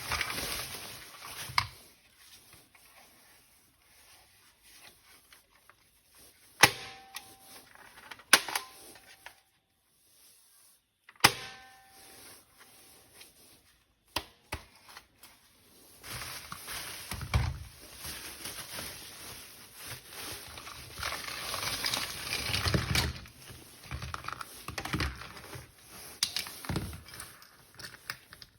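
Toy weapons and their plastic packaging being handled: a few sharp plastic clicks and snaps, then a long stretch of rustling and knocking in the second half.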